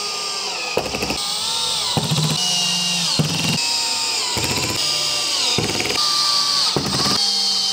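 Makita cordless drill-driver driving small screws into the door hinges, its motor starting up and winding down again and again, about once a second.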